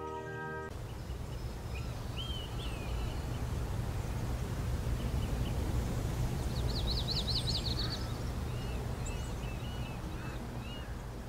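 Birdsong ambience: scattered short chirps from small birds over a low, steady rumble, with a fast trill about halfway through. A music track fades out just after the start.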